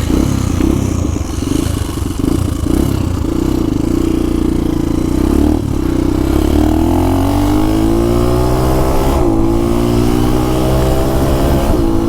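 Motorcycle with a modified exhaust running loudly and then accelerating, its pitch climbing through one gear, dropping briefly at a gear change about nine seconds in, then climbing again.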